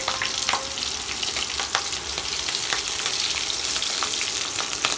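Garlic and slit green chillies sizzling in hot mustard oil in a kadai while a wooden spatula stirs them: a steady frying hiss with scattered sharp ticks.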